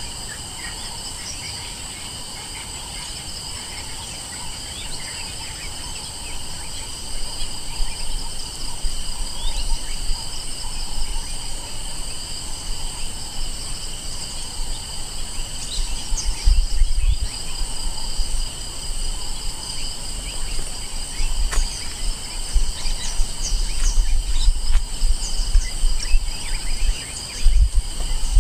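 A steady chorus of insects buzzing in several high, even tones, with short bird chirps scattered over it. From about a quarter of the way in, an uneven low rumble comes and goes, loudest near the end.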